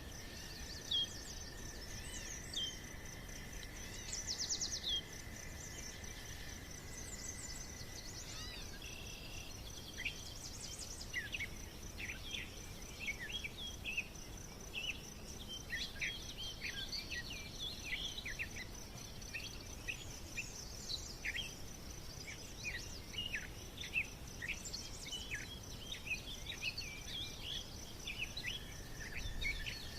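Birds chirping in many short, quick calls, busiest from about a third of the way in, over a steady high-pitched trill.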